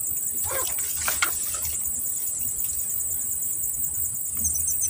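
Steady, high-pitched chorus of insects, buzzing in a fast even pulse. A few faint short noises come in the first second or so.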